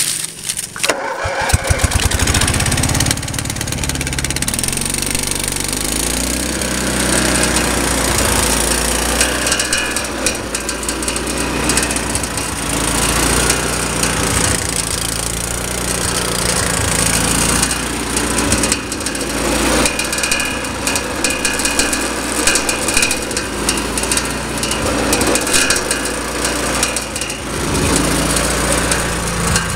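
DR wood chipper's 18-horsepower gas engine, cranked by its electric starter off a jumper cable, catches after about a second and then runs steadily. It runs through an exhaust with a hole in it.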